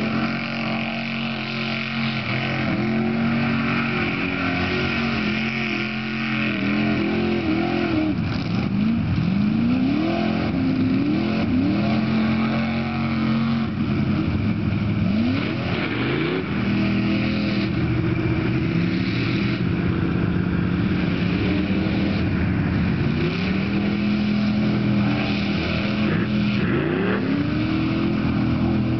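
Off-road vehicle engine revving hard again and again, its pitch climbing and dropping several times between stretches held at steady high revs.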